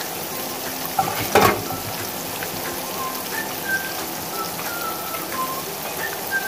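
Battered chicken wings deep-frying in hot oil in a wok: a steady sizzle of bubbling oil, with one louder sharp sound about a second and a half in.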